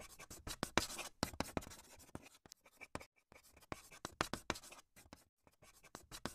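Chalk writing on a blackboard: faint, short, irregular scratches and taps of chalk strokes, with a brief pause near the end.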